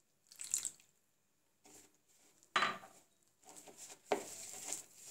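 A ceramic cup knocks against the dish a few times as water is added to flour in a bowl, with one sharp clink about two and a half seconds in. Then comes a run of rubbing and scraping as a hand mixes the wet flour against the bowl.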